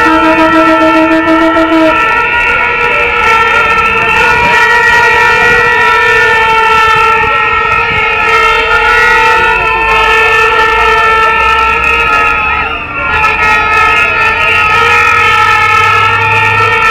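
Plastic protest horns (vuvuzelas and small trumpet horns) blown together in a loud, steady drone of overlapping notes, with a note sliding slowly up and down now and then. A lower horn note drops out about two seconds in.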